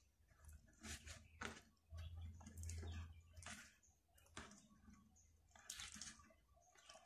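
Near silence with a few faint clicks and rustles of a plastic Beast Wars Fuzors Sky Shadow action figure being handled and posed.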